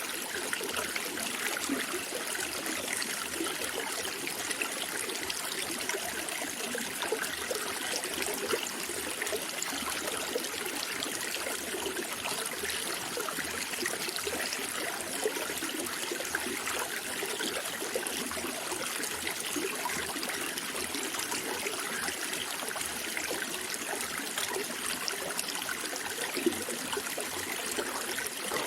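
Running water flowing and trickling steadily, a constant even rush with fine splashing detail and no change.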